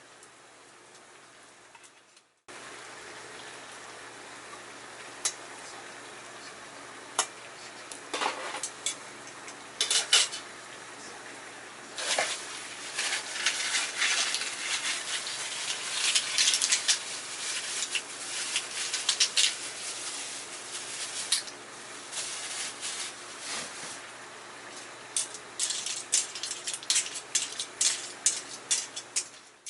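A metal utensil clinks and scrapes against a steel frying pan over a steady sizzling, crackling bed. Scattered at first, the clatter grows busier and louder after the first third.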